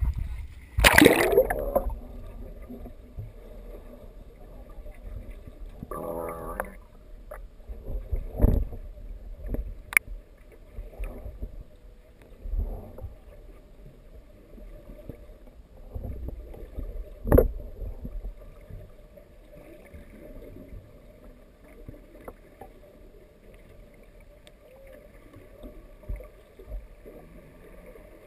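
A camera plunging into the sea with a splash about a second in, then the muffled underwater sloshing and rumble of moving water, broken by a few sharp knocks and thumps.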